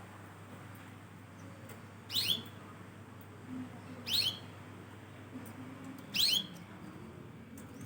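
Canary giving short, high cheeps that sweep sharply downward, three times about two seconds apart.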